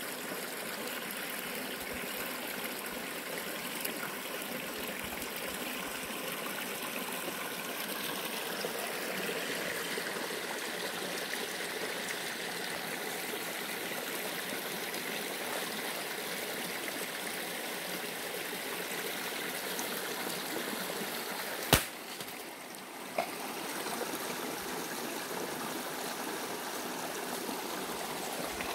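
Steady rush of a small stream flowing over a sandy, stony bed. About 22 seconds in there is a single sharp click, the loudest moment; the water sound dips for about a second, then a smaller click follows.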